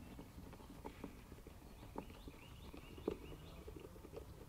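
Faint clicks of a hand screwdriver driving screws into an RV door catch, about one a second.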